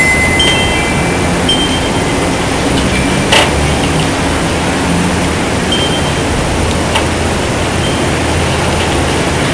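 Loud, steady rushing noise with a thin high whine running under it, a few short faint chirps, and a single click about three and a half seconds in.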